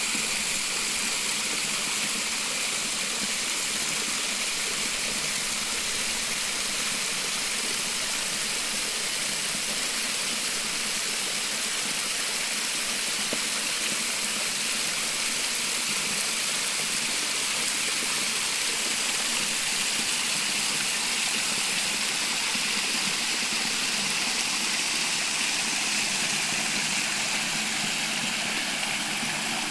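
Waterfall water rushing: a steady, even rush with no change in level.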